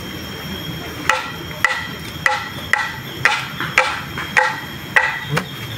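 Repeated chopping strikes, about nine of them at roughly two a second, each hit followed by a short ringing tone.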